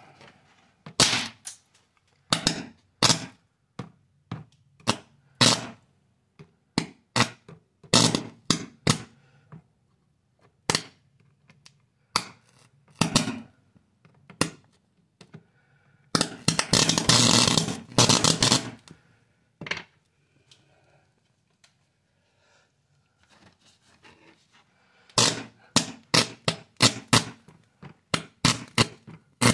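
High-voltage sparks snapping between a metal probe and a charred circuit board: sharp cracks in irregular groups, a sustained crackling arc for a couple of seconds about halfway through, then a fast run of cracks near the end as the board catches fire.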